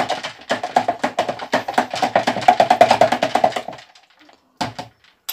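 Metal spoon stirring tamarind water in a plastic jug, clacking rapidly and repeatedly against the jug's sides. The stirring stops about four seconds in, followed by a couple of light taps.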